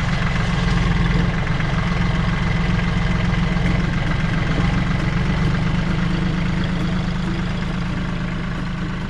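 Engine idling steadily with a low, even chugging.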